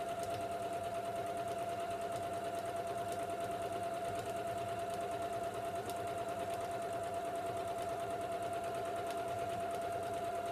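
Janome electric sewing machine running steadily, stitching along the edge of layered quilted fabric: a steady motor hum with a fast, even needle rhythm.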